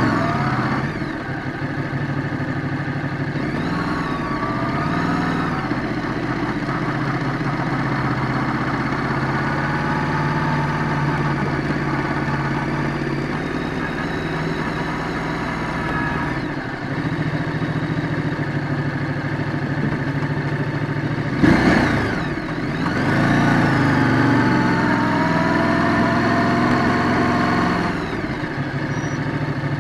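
Ducati Multistrada 950 S's 937 cc L-twin engine running at low road speed, its revs rising and falling several times as the bike is throttled on and off. One sharp thump stands out about two-thirds of the way through.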